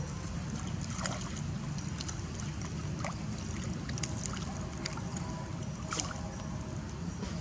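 Macaques swimming and wrestling in shallow muddy water: a few sharp splashes, about a second in, around three and four seconds, and near six seconds, over a steady low rumble.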